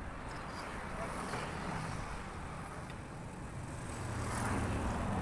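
Road traffic: a car passing on the street, its engine and tyre noise growing louder about four seconds in.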